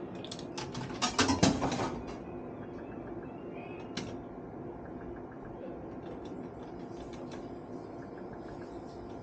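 Steady hum of a bar slot machine, with a quick burst of clicking and rattling about a second in and a single sharp click a few seconds later.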